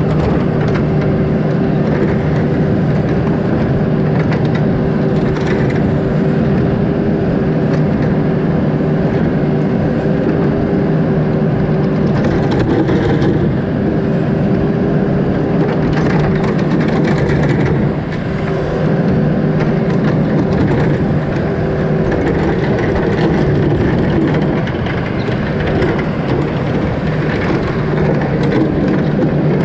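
John Deere backhoe's diesel engine running steadily as the boom and bucket dig, heard from the operator's seat, with short knocks and scrapes of the bucket now and then.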